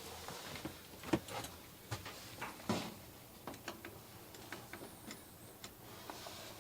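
Irregular light clicks and knocks of hands working on the dryer's control knob and panel, the strongest a little over a second in and near the three-second mark.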